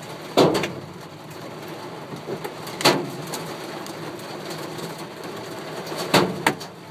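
Large hailstones striking the van's metal roof with sharp bangs, a couple about half a second in, one near three seconds and two more near the end, over a steady hiss of falling hail and rain. The stones are big enough to dent the roof.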